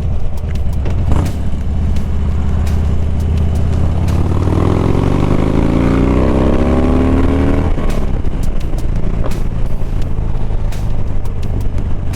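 Harley-Davidson Dyna Street Bob V-twin engine running under way, with wind noise on the microphone. About four seconds in the pitch climbs steadily for a few seconds as the engine accelerates, then drops off abruptly near the eight-second mark.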